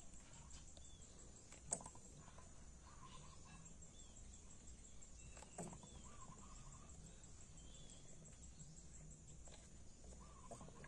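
Near silence: faint outdoor ambience with short bird chirps now and then and a steady faint high-pitched hiss. Two small clicks sound, one a couple of seconds in and one near the middle.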